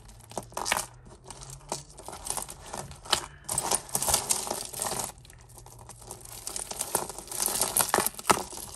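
Costume jewellery being sorted by hand: small metal pieces and chains clinking and rustling in irregular light clicks, busiest about three to four seconds in and again near the end.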